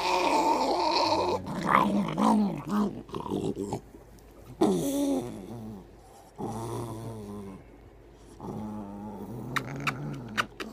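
Wire-coated terrier growling and grumbling in about five drawn-out, wavering growls with short pauses between them, a moody dog's grumble of protest while being hugged and kissed.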